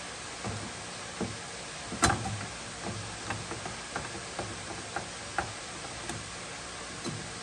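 Irregular light clicks and taps of hand tools and metal parts being handled while fitting a trunk lock, with one louder knock about two seconds in, over a steady hiss.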